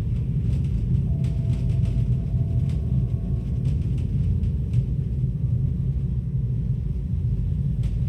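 A steady low rumble, with faint scattered clicks and a faint held tone above it.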